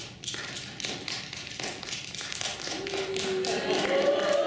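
Audience applauding at the end of a lecture, a dense patter of hand claps, with voices rising over it in the second half.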